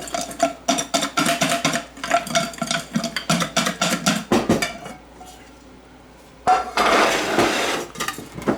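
Grilled chicken wings being shaken with buffalo sauce in a container, clattering rapidly for about four seconds. After a short pause there is another loud burst of rattling near the end.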